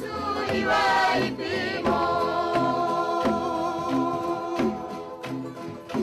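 Background music with singing voices over a repeated low bass line, cutting off suddenly at the end.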